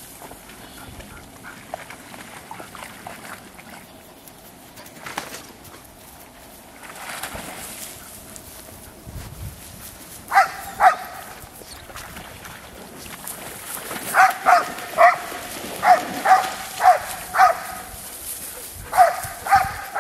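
Groenendael Belgian Shepherd barking in short, sharp, high barks. There are two about halfway through, then a quick run of about seven, then three more near the end.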